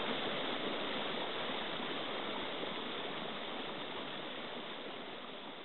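Steady rushing noise of running water, slowly fading.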